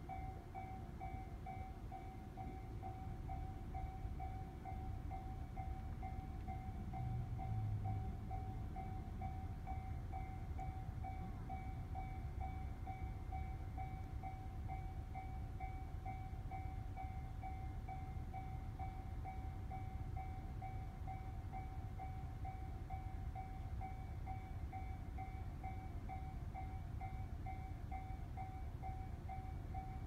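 Japanese railway level-crossing alarm ringing steadily, an electronic bell tone repeating at a quick even pace over a low rumble: the crossing is closed for an approaching train.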